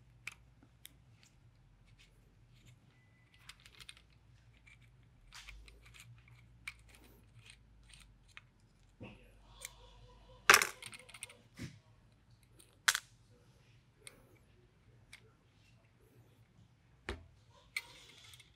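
Scattered small metallic clicks and clinks as the steel parts of an FX Maverick PCP air rifle's action and a T-handle hex key are handled, with one louder, briefly ringing clink about ten seconds in and a few sharper ticks near the end.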